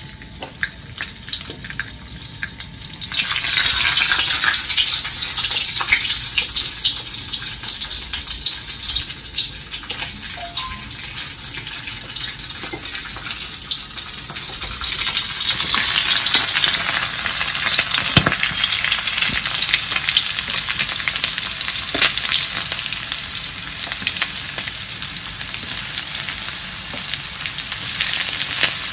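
Dried anchovies (ikan bilis) frying in hot oil in a wok: a steady sizzle that grows louder about three seconds in. Around halfway, sliced shallots, garlic and chilli go in and the sizzle rises again, with a spatula stirring and scraping and a few knocks on the wok.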